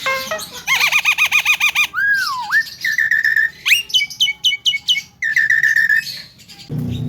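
Javan myna (jalak kebo) calling in a string of loud whistles: a run of fast wavering notes, a falling slurred whistle, held steady whistles and a quick series of sharp rising notes. A low hum comes in near the end.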